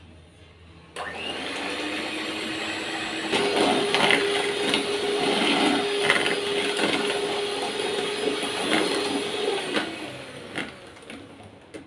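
Electric hand mixer switched on about a second in, its beaters whirring through the batter as eggs are beaten into creamed margarine and sugar. About three seconds in the motor steps up to a higher speed with a higher hum, and it winds down and stops near the end, followed by a couple of small clicks.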